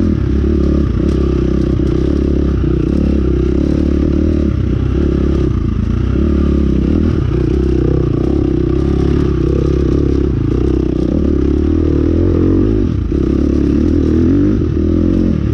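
A ridden vehicle running steadily along without letting up, its motor's drone holding an even level.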